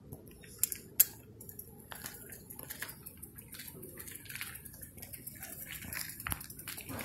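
Footsteps scuffing over gritty, broken asphalt: scattered light clicks and scrapes, with one sharper click about a second in.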